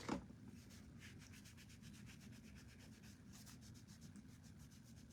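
Faint, quick rubbing strokes of fingertips being wiped clean with rubbing alcohol, over a steady low hum.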